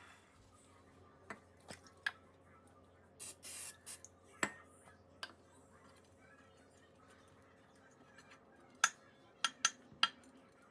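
Scattered sharp clicks and taps of small objects being handled, with a short hiss like a spray about three seconds in and a quick run of four clicks near the end.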